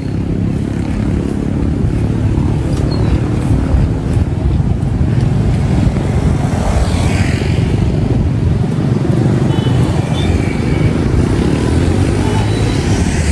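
Road traffic with motorcycles going by, one passing close about seven seconds in, under a heavy, steady low rumble of wind buffeting a moving handheld phone's microphone.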